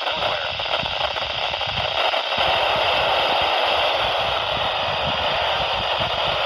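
Steady radio static hiss from a weather-radio receiver on a NOAA Weather Radio channel, with no voice on the air.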